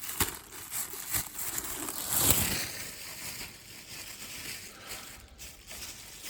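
Rustling and a few light clicks as a bag of shaving accessories is handled and unpacked, with one louder rustle about two seconds in.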